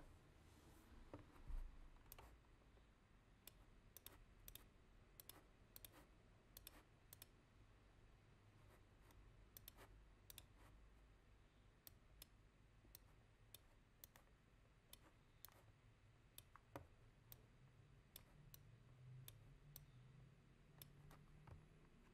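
Faint computer mouse clicks, irregular and scattered, over near silence.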